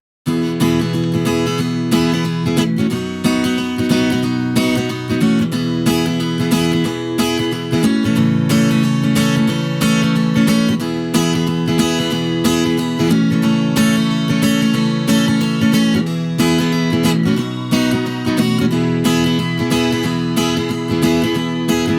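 Acoustic guitar strumming chords steadily in an instrumental song intro, with no vocals.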